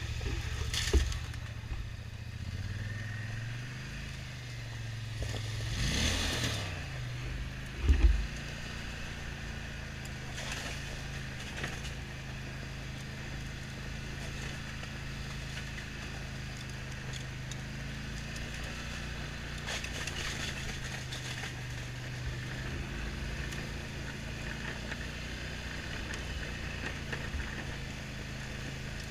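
ATV engine running steadily at low speed on a rough trail, its revs rising and falling a few seconds in. There are sharp knocks about a second in and again around eight seconds.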